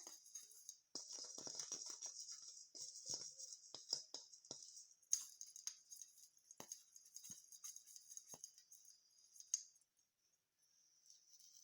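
Fir tree branches and needles being handled and rustled: a soft, hissy rustle with many small crackles and snaps. It stops briefly near the end before resuming more faintly.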